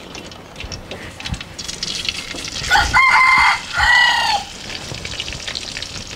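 A rooster crows loudly about three seconds in, in two parts with a short break between, over the steady sizzle of a slab of pork belly deep-frying in oil in a wok.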